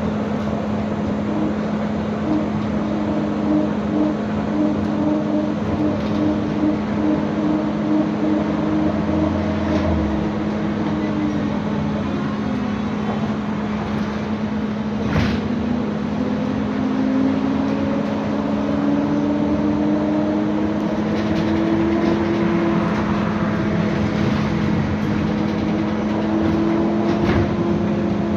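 Cabin sound of an AKSM-321 trolleybus under way: the electric traction drive whines over a steady hum and road noise. The whine drops in pitch a little before halfway, then climbs again as the trolleybus picks up speed. There is a single knock about halfway through.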